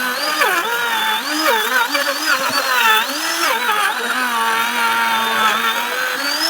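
Electric power tool motor running continuously, its pitch dipping and recovering as it bites into the wood.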